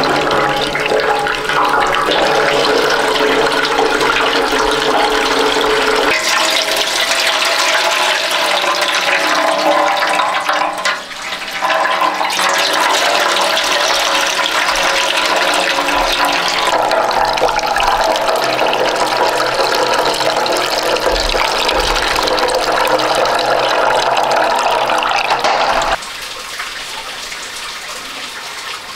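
Lemon juice wrung from a loofah strainer, streaming and splashing into a basin of juice. It is steady and loud, and drops to a quieter trickle near the end.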